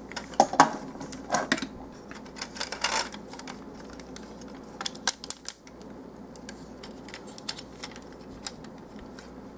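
Hard plastic parts of a Voyager-class Long Haul Transformers figure clicking and clacking as its joints and panels are moved by hand. There are scattered sharp clicks, several in the first three seconds and a quick cluster about five seconds in.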